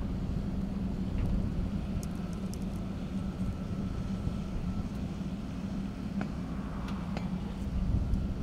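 A steady low engine rumble with a constant hum, like a motor vehicle idling, with a few faint ticks above it.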